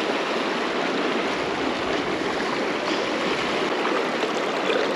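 A fast, shallow river rushing steadily.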